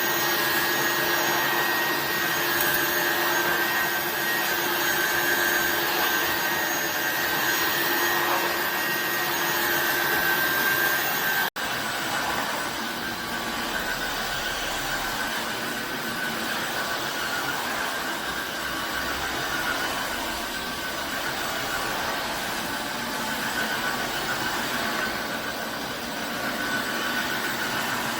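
Tineco iFloor 5 Steam wet-dry floor cleaner's suction motor running steadily with a constant whine. It cuts out for an instant about a third of the way in, then carries on slightly quieter with a changed whine.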